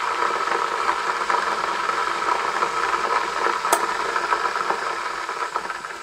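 A 3 kW electric kettle heating water: a steady hiss, with one brief click about three and a half seconds in. The sound fades away near the end.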